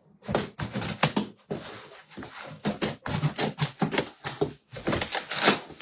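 Cardboard and polystyrene packaging being handled and pulled apart: a dense, irregular crackling and scraping with sharp clicks, loudest near the end.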